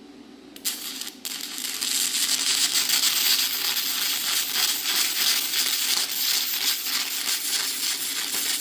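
Stick welder striking an arc: a couple of short crackles as the rod catches, then a steady crackle of the running arc for about seven seconds, cut off sharply at the end.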